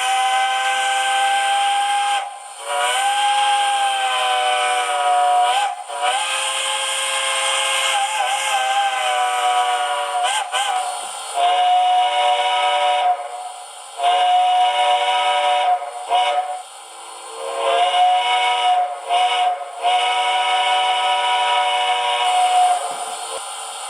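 Model steam locomotive's digitally sampled chime whistle from a TCS WOW Sound decoder, played through the model's small speaker: several notes sounding together, blown as a series of long and short blasts, with the pitch wavering on a few of them.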